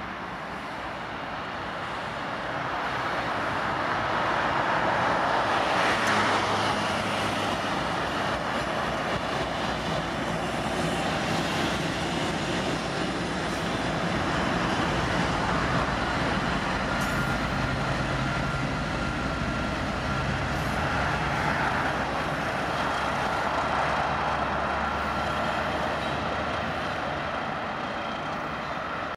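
Diesel locomotives, led by the ET23DM/SD23T4 rebuild CSXT 1726, passing slowly with their engines running as a steady low drone over the rumble of wheels on rail. The sound builds over the first few seconds and then stays loud. A faint thin high whine comes and goes in the second half.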